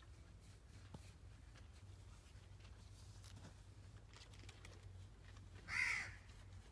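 Quiet background with a faint low hum and scattered soft clicks, and one short chirping call near the end that is the loudest sound.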